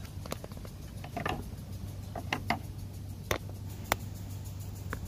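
Irregular sharp clicks and clinks of a hand tool tightening the air filter back on a Honda Foreman ATV, about seven in all, the sharpest about four seconds in.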